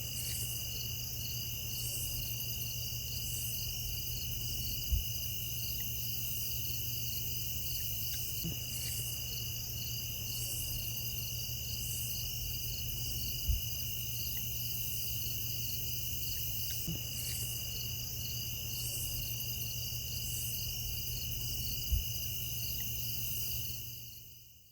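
Insect chorus of crickets: a steady high trill with a higher pulsing call repeating about once a second, over a low rumble. Three soft low thumps are spread through it, and it fades out near the end.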